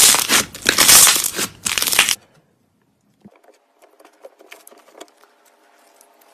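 Mirror putty being squeezed and pressed by hand, with dense, loud crackling and popping of trapped air bubbles; it stops abruptly about two seconds in. After a second of silence, faint scattered clicks come over a low steady hum.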